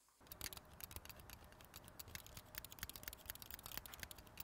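Faint, irregular rapid clicking and light scratching, many small clicks a second.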